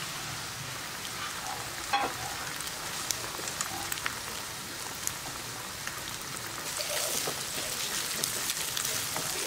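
Eggs frying in hot oil in a non-stick pan with cauliflower, a wooden spatula stirring and scrambling them with a few light ticks and scrapes. The sizzle grows louder from about seven seconds in.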